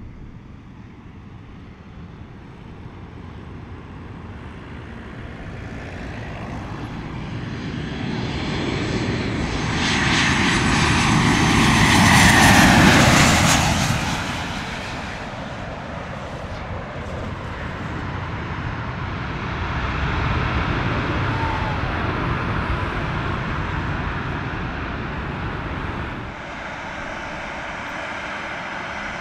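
Airliner passing low overhead on landing approach: its engine noise builds steadily, peaks about twelve seconds in with a falling pitch as it goes over, then fades. The noise swells again, more gently, about twenty seconds in.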